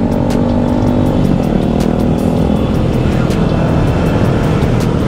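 Several motorcycle engines running together in a moving group, mixed with wind noise, with steady engine tones and small rises and falls in pitch.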